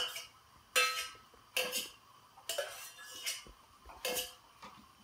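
A metal utensil knocking against a metal pot several times, about a second apart, each knock ringing briefly, as mashed dal is spooned from one pot into another.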